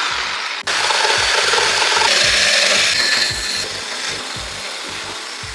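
Homemade saw driven by an angle grinder's motor, cutting steadily, with a brief break just over half a second in and getting quieter over the last couple of seconds.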